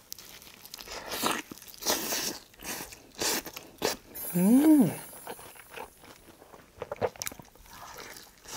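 Close-up crunching bites and chewing of fried chicken in a sticky yangnyeom (sweet-spicy) sauce, a crisp crunch roughly every half second to a second. About four seconds in comes a short hummed "mm" that rises and then falls in pitch.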